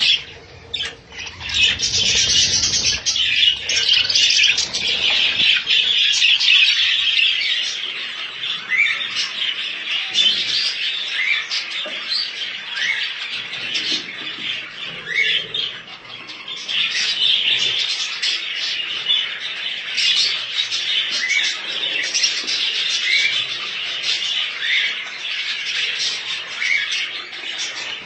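A flock of caged budgerigars and cockatiels chattering and squawking continuously, with many short rising chirps over the steady chatter.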